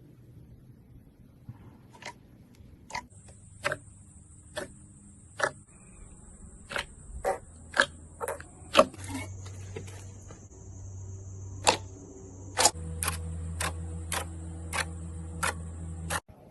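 Slime being handled, giving sharp popping clicks at an uneven pace of roughly one or two a second, over a steady faint high whine and low hum.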